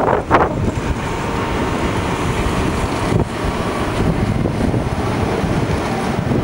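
Train of VB2N double-deck coaches and a BB 15000 electric locomotive moving through the station with a steady rolling rumble. Wind buffets the microphone briefly at the start.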